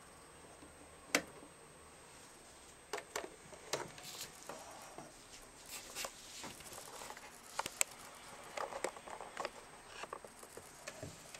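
Handling noise of a sewing machine's power cord and plug: one sharp click about a second in as the plug comes out of the Bernina 1090's socket, then irregular small clicks and knocks as the cord and its plug are moved about on a table.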